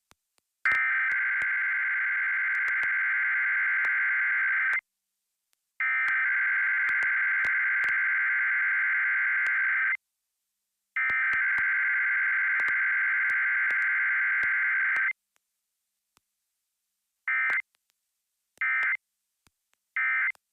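Emergency Alert System SAME digital header: three long bursts of warbling data tones, each about four seconds, sent one second apart, then three short end-of-message bursts. No attention tone or voice message comes between them, the pattern of a Required Weekly Test.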